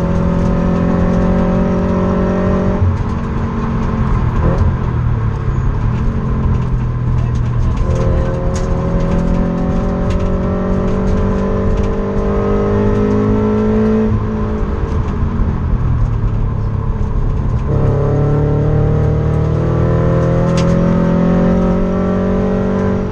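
Sports coupe's engine heard from inside the cabin, pulling hard on track. The engine note climbs steadily, falls away about three seconds in, climbs again from about eight seconds to fourteen, falls away again, and climbs once more from about eighteen seconds.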